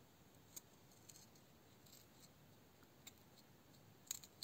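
Near silence, broken by a few faint light clicks and taps, two sharper ones near the end, as fingers handle a thin wooden blade blank.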